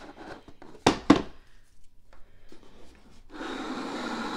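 Louis Vuitton cardboard gift box being handled and opened: two sharp knocks about a second in, then a steady rubbing as the lid slides off the box, starting a little past three seconds.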